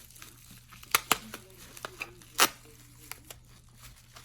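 Card packaging being handled and opened: a few sharp crinkles and rustles of paper and plastic, the loudest about two and a half seconds in.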